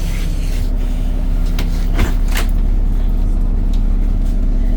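ADL Enviro 400 Trident double-decker bus standing with its engine and radiator cooling fan running, a steady low hum and drone. A few short sharp clicks or knocks come about two seconds in.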